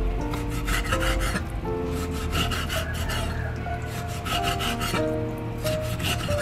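Steel cleaver blade scraping and knocking on a wooden chopping block as it works diced pork, in short runs of strokes about once a second. Light instrumental music plays underneath.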